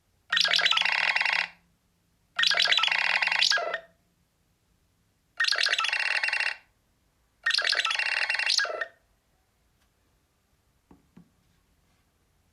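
A Nothing Phone (1) default ringtone playing from the phone: four rings of about a second and a half each, in two pairs, with short falling tones inside each ring. Two faint clicks follow near the end.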